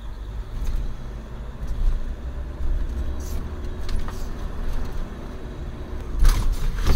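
Steady low rumble of road and engine noise inside the cab of a moving van, with a few faint clicks. The noise gets louder and sharper near the end.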